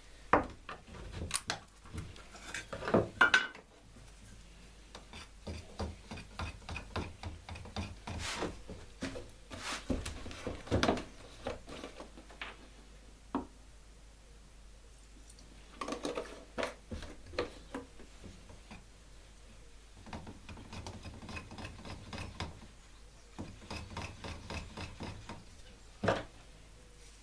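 Irregular knocks, clicks and scraping from objects being handled and moved about, with a few louder knocks about three seconds in and a single sharp knock near the end.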